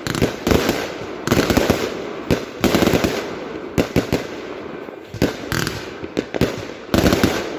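Lesli Kyoto Kamuro firework going off as a rapid, irregular series of bangs and burst reports, several a second, some followed by a short crackling tail.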